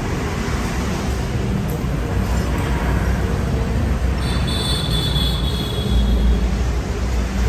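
Steady road traffic and outdoor yard noise with a low rumble, and a brief high whine about four seconds in.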